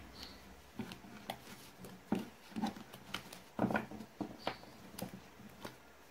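Tarot cards handled on a tabletop: cards slid and tapped into place, then the deck picked up, heard as a scatter of soft irregular taps and rustles.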